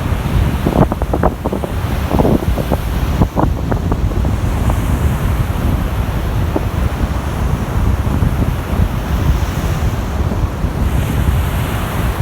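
Baltic Sea surf washing ashore in strong wind, with wind buffeting the microphone into a steady low rumble. A few brief knocks or clicks come in the first four seconds.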